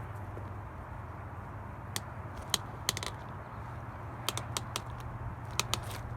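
Smittybilt 2781 portable 12-volt air compressor running steadily while it inflates a freshly seated tire, with scattered sharp clicks and clacks of the ratchet strap around the tire being handled.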